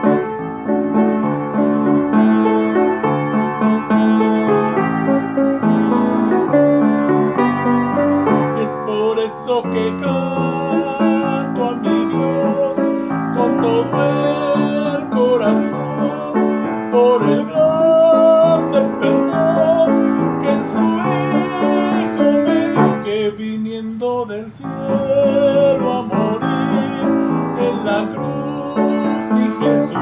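Piano playing a melody over chords. From about halfway through, a wavering, higher melody line with vibrato sounds above the piano.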